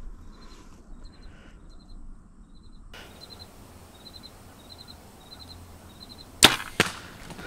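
Bow shot at a buck: two sharp cracks about a third of a second apart near the end, the string's release and then the arrow striking the deer, which is hit hard.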